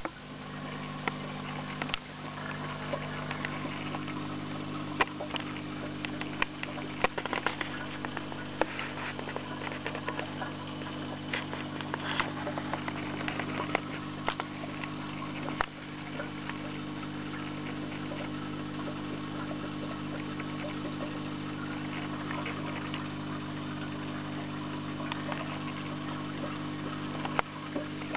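Steady low hum of aquarium equipment, with scattered light clicks and ticks over it.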